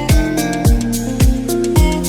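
Background music with a steady beat, about two beats a second, and sustained melodic notes.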